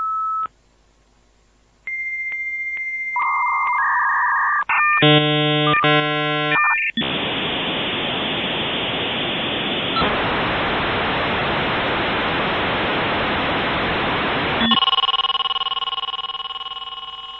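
Dial-up modem connecting. A short beep, then a steady answer tone broken by regular clicks, shifting handshake tones, a loud stretch of hissing static, and a chord of steady tones that slowly fades near the end.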